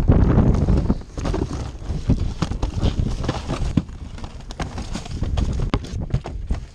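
Boots crunching on snow in repeated steps, with cardboard toy boxes rustling and knocking as they are carried and set into a car trunk. A loud low rumble fills about the first second.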